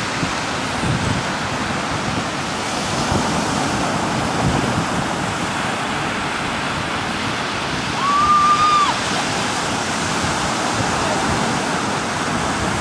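Steady surf and wind noise on a beach. About eight seconds in, a short, high, level-pitched call lasts under a second.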